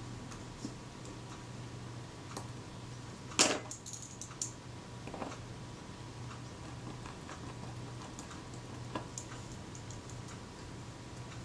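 Small metallic clicks and taps of tweezers and a small screwdriver handling tiny screws on a Kodak Retina IIIc rangefinder assembly. The sharpest tap comes about three and a half seconds in, with a few lighter ones after it, over a steady low hum.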